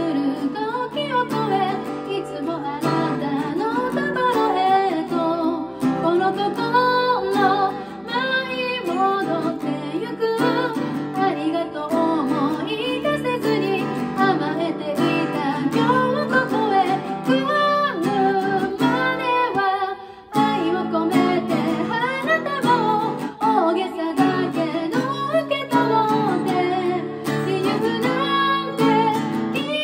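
A woman singing in Japanese to her own acoustic guitar accompaniment, moving from a verse into the chorus near the end, with a short break in the sound about twenty seconds in.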